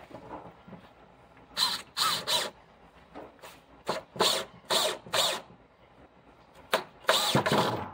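Cordless drill/driver driving screws down through 3/4-inch plywood into the bed's legs, in a series of short bursts of the motor, about eight in all.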